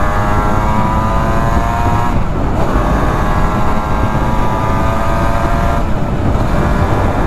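Suzuki RGV250 VJ22's two-stroke V-twin running through Arrow exhausts under acceleration, the revs climbing, dropping briefly at two upshifts about two and six seconds in, then climbing again. The engine is being run in, kept under about 7,000 rpm. Wind rushes on the microphone throughout.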